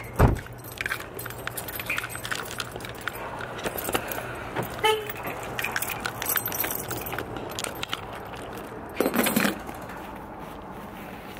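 Keys jangling and clinking in a carried bag while walking, with a heavy thump just after the start and a brief louder rustle about nine seconds in.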